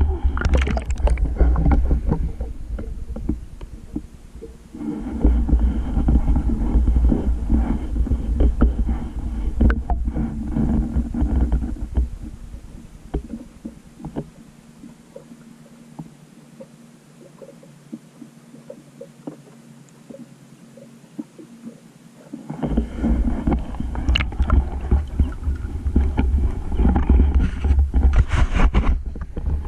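Water sloshing and bubbling against a GoPro camera's housing as it is moved about at the surface of shallow lagoon water, with a rough low rumble and scattered knocks from handling. Several seconds past the middle it turns quieter and muffled while the camera is fully submerged, then the loud sloshing comes back.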